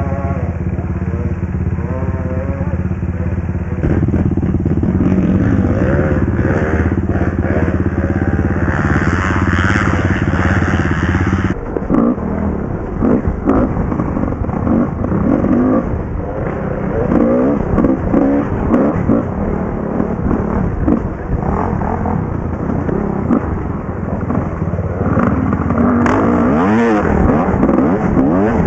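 Dirt bike engines running: at first a steady idle that picks up a few seconds in, then, after an abrupt change about eleven seconds in, a dirt bike ridden hard along a trail, its revs repeatedly rising and falling.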